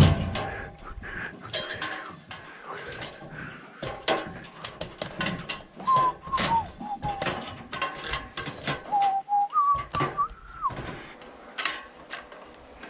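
Footsteps and knocks on an aluminium extension ladder as it is climbed. A few short whistled notes come about halfway through and again a little later.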